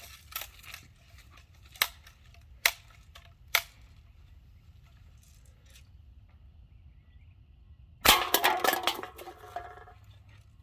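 Three sharp clicks about a second apart, then about eight seconds in a BB gun shot followed by a second and a half of clattering as cans are knocked over.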